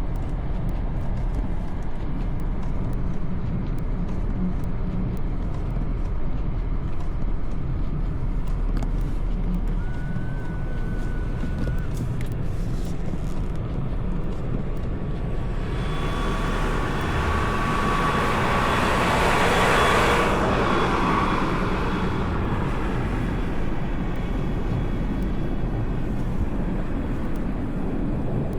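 Steady low rumble of city traffic on a snowy street. Partway through, a vehicle passes: a rising hiss with a faint whine swells, peaks, then fades.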